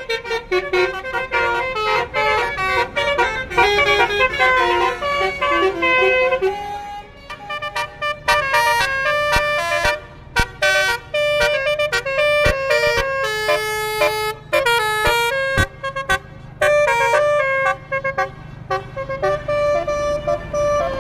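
Basuri melodic air horns on tour buses (the 'telolet' horn) playing quick tunes, the pitch stepping from note to note with several horn notes sounding together, in a run of sequences with short breaks.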